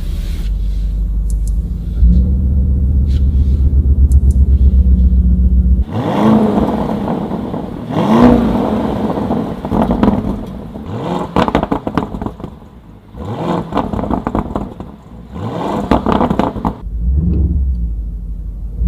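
Lamborghini Urus's 4.0-litre twin-turbo V8 exhaust, stationary in park: a low idle that steps up to a louder steady rumble about two seconds in. From about six seconds it is blipped repeatedly, about six revs rising and falling with sharp crackles between, before settling back to a low idle near the end.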